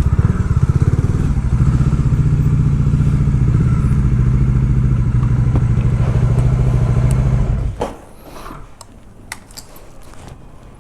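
Bajaj Dominar 400's single-cylinder engine idling, then switched off a little under eight seconds in. A few light clicks and clatter follow.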